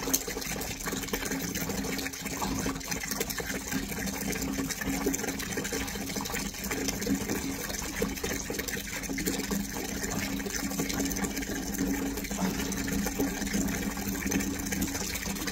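Water running steadily, with a low steady hum underneath.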